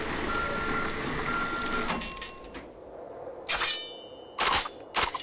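Cartoon sound effects: a steady mechanical noise with a beep-like tone repeating about once a second, which stops after about two seconds. Then comes a short metallic ring and a few quick sharp swishes near the end.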